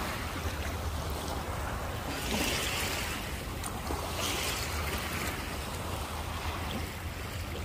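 Sea water washing and lapping around people standing in the shallows, a steady hiss that swells and fades a few times, with wind rumbling on the microphone underneath.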